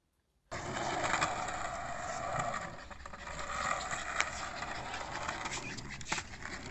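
Skateboard wheels rolling on concrete, a steady rolling rumble that starts abruptly about half a second in, with a few sharp clacks of the board.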